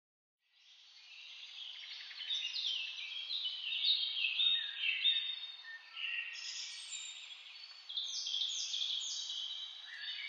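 Birds chirping and singing, many short high calls overlapping one another, fading in about half a second in.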